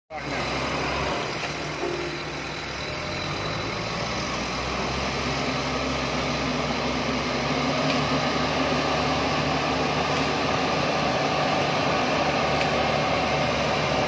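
Heavy diesel machinery running steadily, from the engines of a Case motor grader stuck in mud and a JCB backhoe loader moving up to pull it. The engines grow a little louder in the second half.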